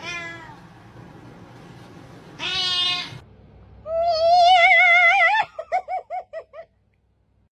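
Domestic cat meowing: a falling meow, a shorter meow, then a long, loud, wavering yowl, followed by a quick run of short chirping calls.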